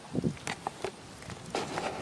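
Footsteps and rustling in tall grass: a scatter of short crackles and soft thuds, with a longer rustle near the end.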